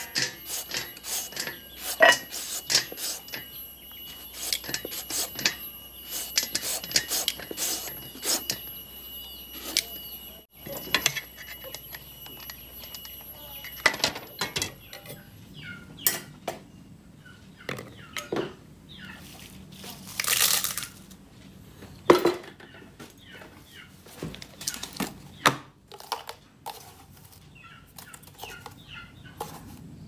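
A serrated hand shredder scraping down a green papaya in a quick run of strokes for the first half. Then sparser clicks and knocks at a wooden mortar and pestle, with a short rustling noise about twenty seconds in and a sharp knock just after.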